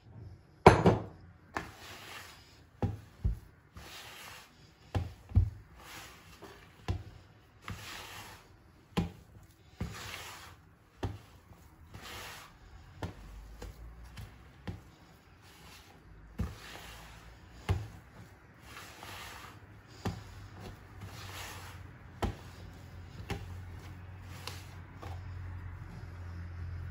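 A hand rubbing butter into flour and working crumbly dough in a plastic mixing bowl: rustling, scraping strokes about once a second, some with a soft thump against the bowl.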